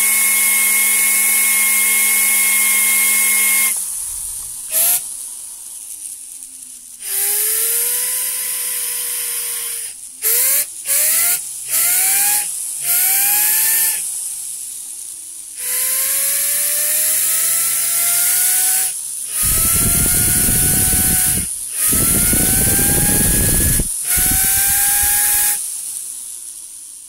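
Homemade five-nozzle rotary engine spinning on compressed air from a blow gun: first a steady high whine with air hiss at about 8,700 rpm, then fed in short bursts, each hiss sending the whine rising in pitch and the rotor winding down between bursts. With almost no compression, it spins freely like a turbine.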